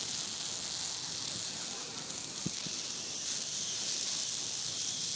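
A long, steady hiss made with the mouth, a vocal imitation of food sizzling in a frying pan, that cuts off suddenly after about six seconds.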